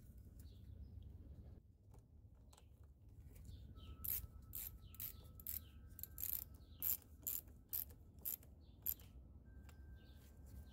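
Ratchet wrench tightening a battery terminal clamp nut: a series of sharp clicks, about two a second, from about four seconds in to about nine.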